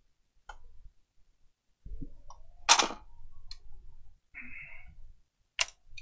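Scattered clicks and knocks of console parts and a tool being handled and set down on a workbench, the loudest about three seconds in. A short scrape comes just before the five-second mark.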